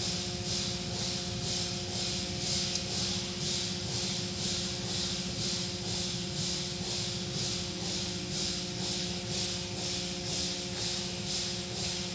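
Automatic car wash machinery running: foam and water spraying onto a car with a steady hiss that pulses about three times a second as the cloth brushes spin, over a steady motor hum and low rumble.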